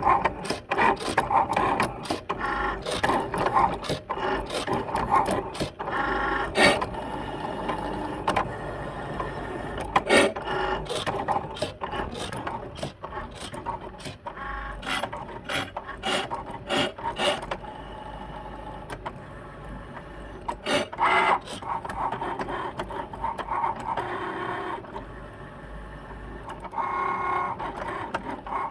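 Cricut Maker cutting machine running, its carriage moving with a rasping grinding noise broken by many sharp clicks. The owner puts the grinding down to clamp B, the blade clamp.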